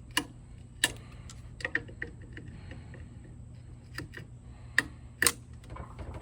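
Sharp metallic clicks and taps from parts and hand tools being handled on an engine during an intake manifold install, about seven, irregularly spaced, over a steady low hum.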